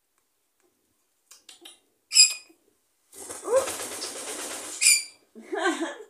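African grey parrot calling: a short sharp high squeak about two seconds in and another near five seconds, with a longer rushing, rasping sound between them and a lower warbling call near the end.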